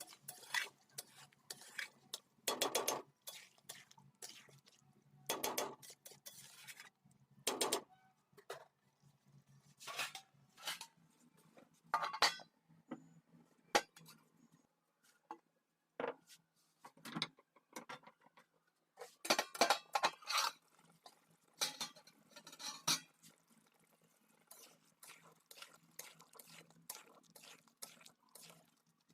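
Kitchen utensils knocking and scraping against a cooking pot in irregular strokes with short pauses, with a few longer scrapes.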